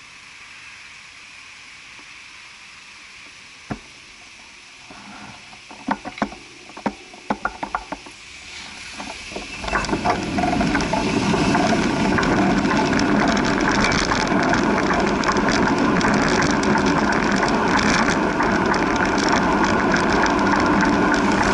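A bicycle moving off from a stop: a handful of sharp mechanical clicks from the bike, then a loud steady rushing noise once it is rolling along the street in traffic.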